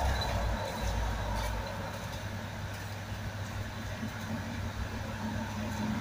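A steady low rumble of distant traffic, a little louder in the first second or so.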